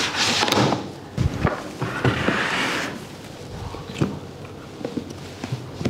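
Hard plastic trolley case being handled on a table. Its telescoping handle rod slides, followed by sharp knocks a little over a second in, a longer scraping slide of the case, and a few separate sharp clicks near the end.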